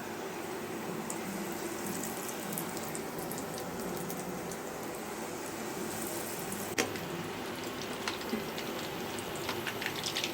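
Breadcrumb-coated fish cutlets sizzling steadily as they deep-fry in hot oil in a kadai, with scattered small crackles and one sharp click about seven seconds in.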